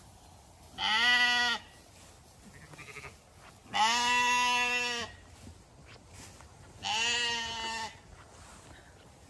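Zwartbles sheep bleating: three loud, drawn-out bleats about three seconds apart, each lasting about a second, with a fainter short bleat between the first two.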